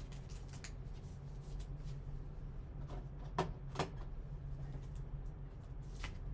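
Trading cards being handled in clear plastic sleeves and rigid top loaders: light plastic rustling and small ticks, with two sharper clicks about three and a half seconds in. A steady low hum runs underneath.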